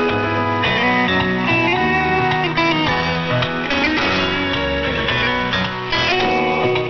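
Instrumental music with a run of changing notes, received over shortwave AM radio.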